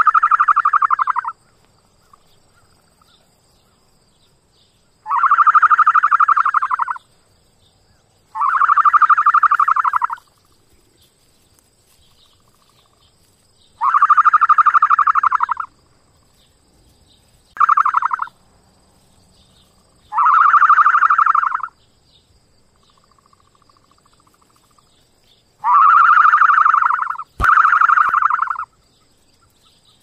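Ostrich calls: a rapid pulsing call about one and a half to two seconds long, repeated about eight times with pauses of a few seconds, the last two back to back. A single sharp click comes near the end.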